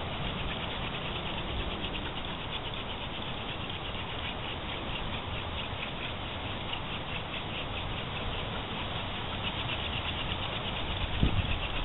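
Hand drill fire-making: a wooden spindle spun back and forth between the palms, its tip grinding in the hearth board with a steady rasping friction noise and the palms rubbing along the shaft.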